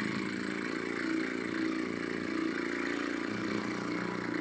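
A trombonist's lips buzzing in a sustained embouchure flexibility exercise, one long held buzz that steps up in pitch about three seconds in.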